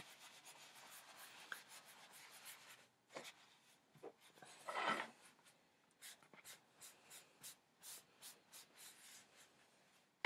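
Faint rubbing of a paper towel wiped over a wet painted surface, taking off excess paint extender. There is one louder swish about five seconds in, then a run of light strokes about twice a second.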